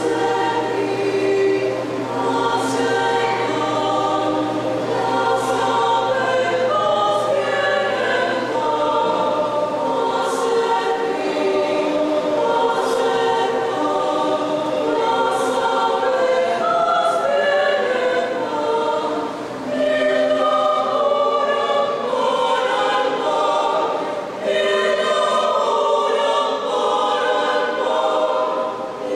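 A mixed choir sings in several parts, holding sustained chords that move from one to the next, with two brief breaks between phrases about 19 and 24 seconds in.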